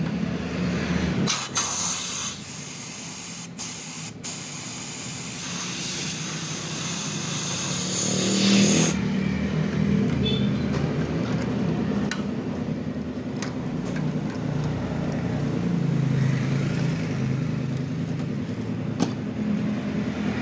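A machine hums steadily and low throughout. A loud hiss starts just over a second in and cuts off abruptly about nine seconds in, with a few sharp clicks along the way.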